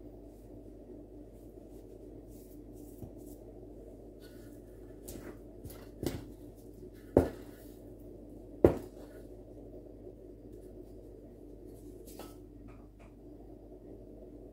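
Hands brushing through flour on a wooden board, with three sharp knocks against the metal dough bowl in the middle, about a second apart, as a hand reaches into the dough. A steady low hum lies under it all.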